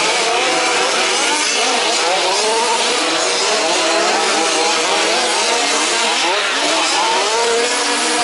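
Several 1/5th scale remote-control off-road buggies racing together, their small two-stroke petrol engines revving up and easing off in many overlapping, wavering pitches.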